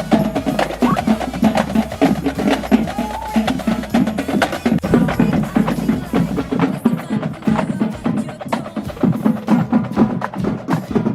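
Upbeat pop music with busy, driving percussion and no vocal line; the deep bass drops out a little past halfway through.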